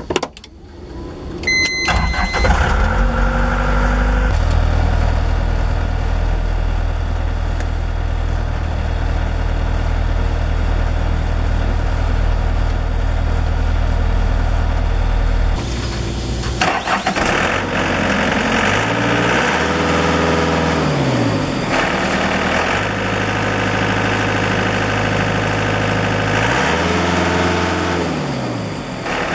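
Volvo MC110B skid steer loader's diesel engine: a short warning beep, then the engine cranks and starts and settles into a steady idle. Later it runs faster, with the engine pitch rising and falling twice.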